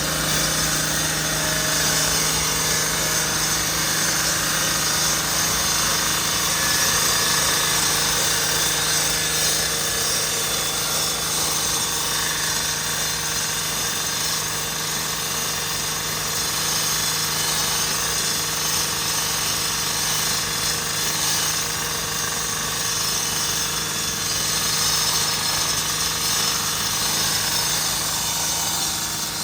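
A large engine running steadily, with a constant low hum under an even mechanical rattle and hiss.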